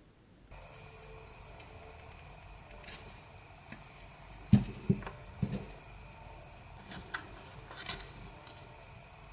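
Small clicks and taps of cardboard toilet-roll pieces being handled and sewn with a needle and thread, with a few louder knocks about halfway through, over a faint steady hum.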